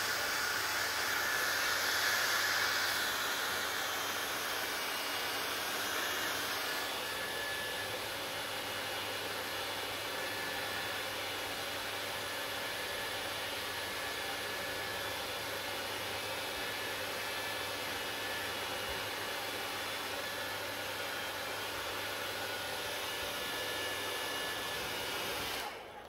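Handheld hair dryer running steadily, blowing air with a faint low hum, a little louder in the first few seconds; it cuts off just before the end.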